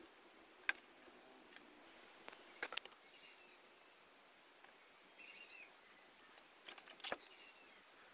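Faint sharp clicks and taps of a steel ruler and pencil set down and moved on a sheet of board, the loudest near the end. Three short high chirps sound between them.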